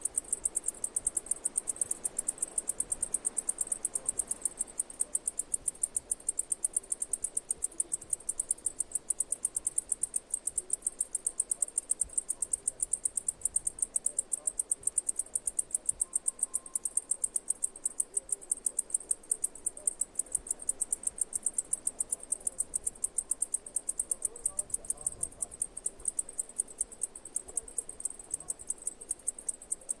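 Cicada calling: a steady, high-pitched buzz made of rapid, evenly spaced pulses.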